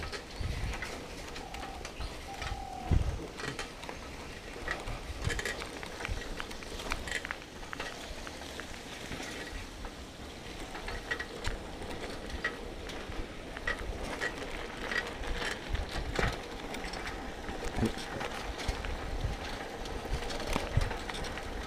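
Bike riding over a rough track: an irregular rattle of clicks and knocks from the bike, with low thumps of wind buffeting the camera microphone.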